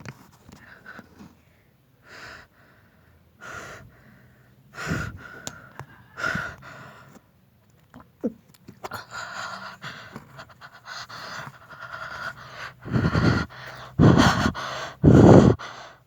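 Heavy, rasping breathing close to the microphone: uneven pants and wheezy gasps, thicker in the middle, ending in three loud breath blasts on the mic.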